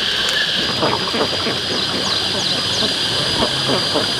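Many ducks calling, in short falling notes over and over, over a steady high insect-like buzz. A thin high whine with quick falling chirps on top of it comes in about half a second in.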